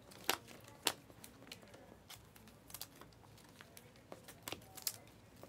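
Glossy Panini Mosaic trading cards being flicked and slid one behind another off a stack in the hands: irregular sharp clicks with soft rubbing of card stock in between.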